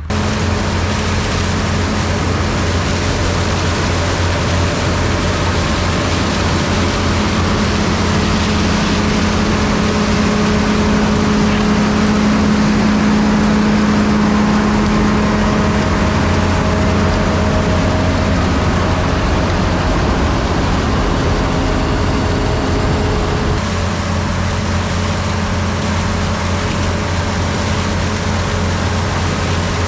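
John Deere 3300 combine running steadily under load as it cuts corn, its engine and harvesting machinery making a dense, continuous hum. The sound changes slightly near the end.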